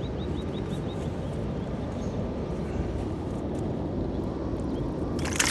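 Riverbank night ambience with a steady low rumble and a fast run of short high chirps in the first second. Near the end comes a sudden splash-like burst as the released gar goes back into the water.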